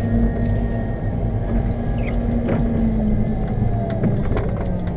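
Lundberg wheel loader's diesel engine running steadily under load while it pushes a snow plough, heard from the cab, with scattered clicks and knocks.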